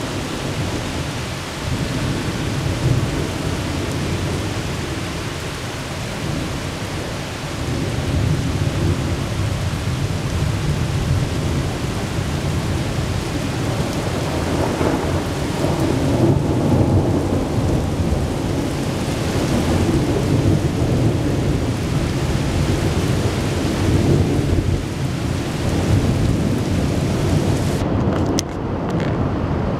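Thunder rumbling low and long, swelling and fading again and again, over the steady hiss of rain. Near the end come a few sharp clicks, and the hiss drops away.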